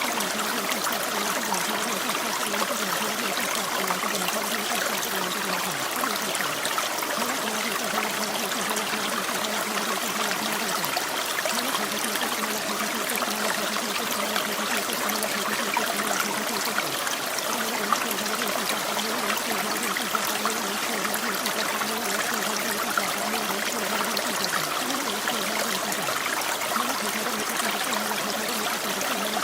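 Steady rain: an even rushing hiss scattered with fine ticks of falling drops.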